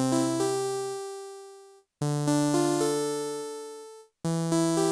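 Technics SX-K200 keyboard playing its synthesized harpsichord voice: short phrases of several notes built up one after another, each phrase fading and then cutting off abruptly when the keys are let go, about every two seconds.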